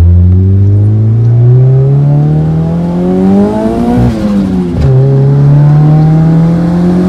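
Turbocharged Honda D16 SOHC four-cylinder in a Civic ESi accelerating hard, heard from inside the cabin. The engine pitch climbs steadily, drops sharply at a gear change about four seconds in, then climbs again.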